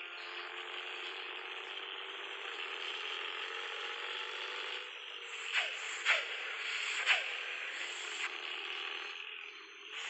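Motorcycle aftermarket exhaust (knalpot) running at idle with a rough, rattling 'snoring' note, with three short louder bursts a little past halfway.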